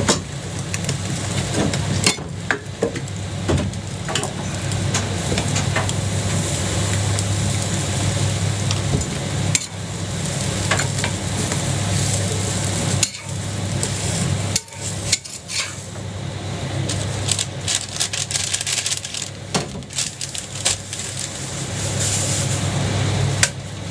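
Jianbing batter sizzling on a hot griddle, with repeated scrapes and clicks of a metal spatula working the pancake, over a steady low rumble.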